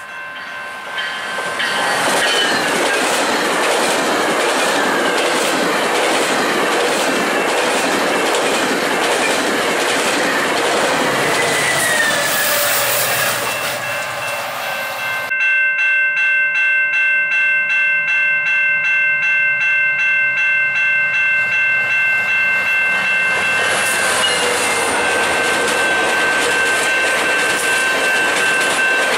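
Passenger train wheels rolling and clicking over the rail joints at a level crossing. About halfway through, a crossing bell starts ringing in an even pulse of about two strokes a second while a GO Transit train's bilevel coaches roll past close by.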